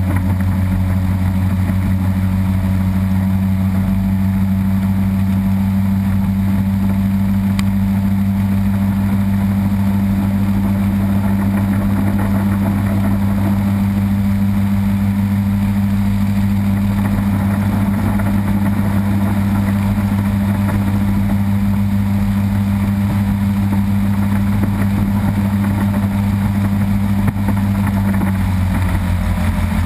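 Mercury Racing 250XS 3.0-litre two-stroke V6 outboard running at a steady speed under way, heard from on board the boat. Near the end its pitch shifts slightly.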